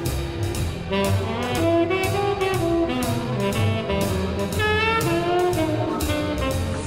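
Instrumental jazz background music: a saxophone melody over a bass line and a steady drum beat.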